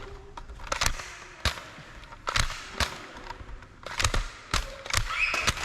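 Nerf blaster play: a string of about nine sharp, irregularly spaced snaps and clicks.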